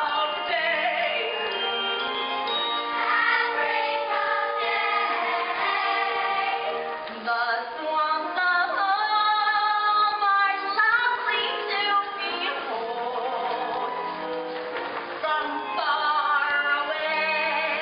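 A stage cast singing a musical-theatre number together in chorus, with pit orchestra accompaniment.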